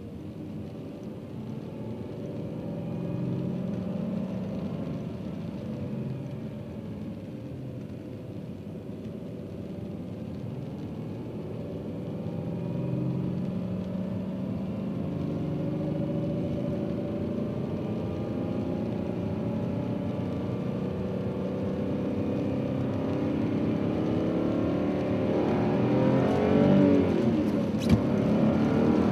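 Subaru EZ30 3.0-litre flat-six engine being revved up and down, its pitch rising and falling and climbing louder near the end, with one sharp click about a second before the end. The rattle it shows comes at about 2500 rpm, and the owner hopes it is not a bearing.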